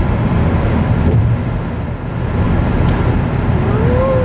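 Taxi cabin noise on an open road: the steady low rumble of engine and tyres, with a short rising-and-falling tone near the end.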